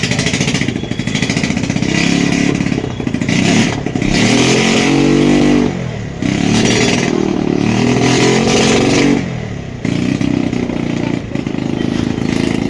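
Motorcycle engine running and being revved, its pitch rising and falling several times, with brief drops around six and nine and a half seconds in.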